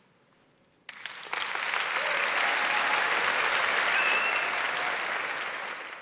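Audience applauding at the end of a talk. After a short silence the clapping starts about a second in, quickly swells into a dense, steady ovation, and tapers off near the end.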